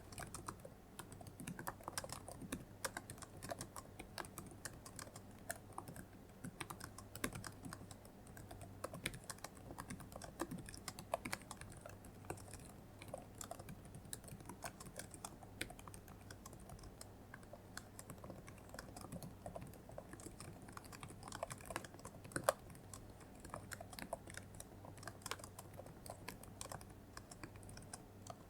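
Computer keyboard typing: quick, irregular keystrokes in a continuous run over a steady low hum, with one harder keystroke about three quarters of the way through.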